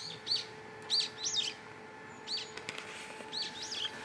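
A small songbird chirping in several short bursts of quick, high notes.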